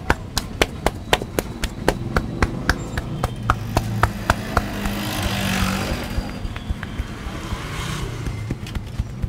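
Rhythmic percussive hand strikes of an Indian head massage, about four slaps a second. Passing traffic swells and fades in the middle.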